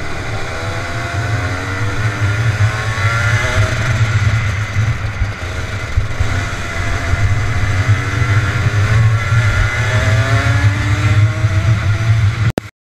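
Rotax Junior 125 cc two-stroke kart engine at racing pace, its pitch rising several times as it accelerates out of corners and dipping between, over a heavy wind and vibration rumble on the onboard camera. The sound cuts off suddenly near the end.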